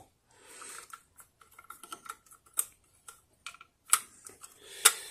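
Small clicks and taps of plastic and metal parts as a new diaphragm is pressed by hand onto the electromagnet frame of a Fuji Clean MAC80NA septic-tank blower, with a few sharper clicks in the second half.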